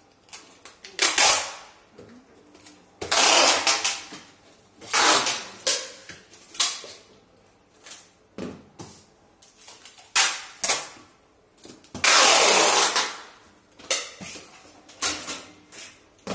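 Packing tape being pulled off its roll and pressed onto a plastic-wrapped cardboard box: several loud rips of a second or less, the longest, a little over a second, about three-quarters of the way through.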